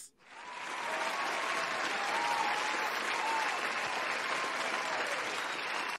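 Canned crowd applause sound effect. It swells in over the first second, holds steady, and stops abruptly at the end.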